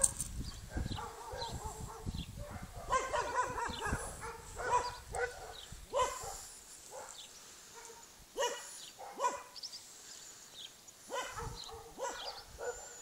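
Short, pitched animal calls repeated at irregular intervals, a dozen or so in all, with brief gaps between them.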